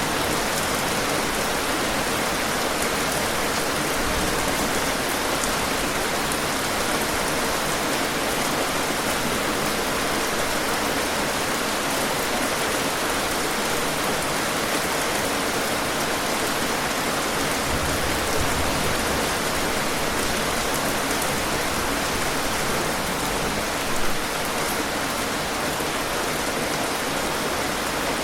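Steady rain falling and pattering on a surface, an even dense hiss with scattered droplet ticks and one brief louder bump near the end.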